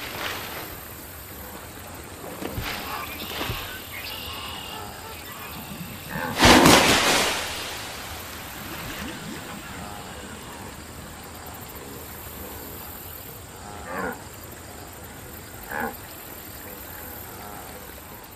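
Cartoon wildebeests giving short, low moo-like grunts, twice near the end, over faint steady ambience. About six and a half seconds in there is one loud, noisy burst lasting about a second, the loudest sound here.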